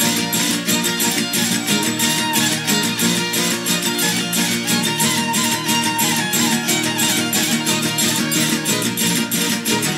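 Verdiales music in the Comares style from a traditional Málaga panda, with no singing. Guitars and lute are strummed to a fast, steady beat of tambourine jingles.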